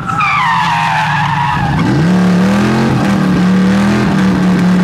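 Tires squealing in a slide, falling in pitch, then the Chevy C10 drift truck's cammed small-block Chevy 355 V8 revs up about a second and a half in and holds steady high revs.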